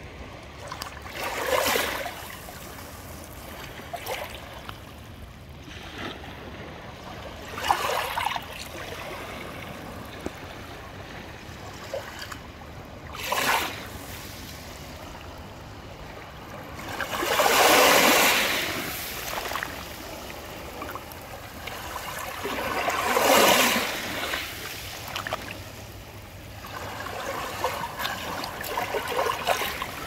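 Small sea waves lapping and splashing: a steady wash of water that swells into a louder splash every few seconds, the two biggest about two-thirds of the way through.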